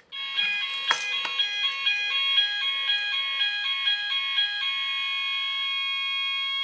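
Gent Vigilon fire alarm sounder going off after a manual call point is activated: an electronic alarm tone alternating between two pitches about twice a second, changing to one steady continuous tone about four and a half seconds in. A single knock is heard about a second in.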